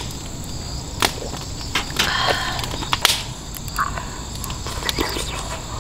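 Crickets chirping steadily, with scattered sharp crackles and pops from a burning campfire.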